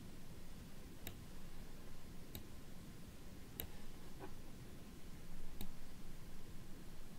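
Computer mouse button clicking: four sharp clicks spaced about a second apart, over a faint low hum.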